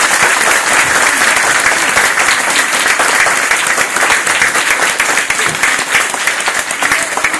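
Audience of schoolchildren and adults clapping: loud, steady applause that tails off a little near the end.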